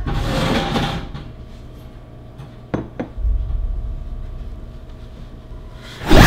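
A noisy clatter lasting about a second, two sharp knocks a couple of seconds later, then a low rumble, and a loud sudden hit near the end.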